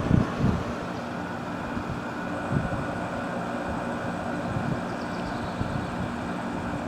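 Everstar air conditioner running on low cool: a steady rush of its fan over the hum of its LG compressor, fairly quiet.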